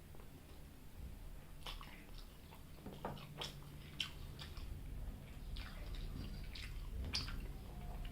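Close-miked eating sounds: soft wet chewing and lip smacks as a mouthful of chicken curry and rice is eaten, with scattered short squelching clicks, over a low steady hum.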